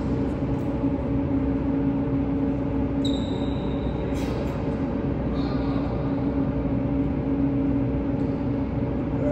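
Steady hum of a large indoor tennis hall's ventilation, with a few sharp knocks of tennis balls being hit and a brief high squeak about three seconds in.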